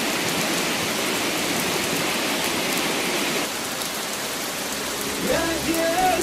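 Steady hiss of heavy rain, easing slightly a little past halfway. About five seconds in, a melody starts over it.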